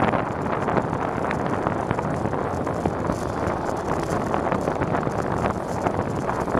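Steady wind noise buffeting the microphone of a bike-mounted camera, mixed with tyre rumble on asphalt, while riding a Dahon Dove folding bicycle.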